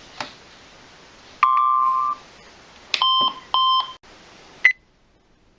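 Electronic beeps from a weather alert radio: one steady tone of just under a second, then two shorter buzzy beeps about half a second apart. A click comes before and after them, and then the sound drops to near silence.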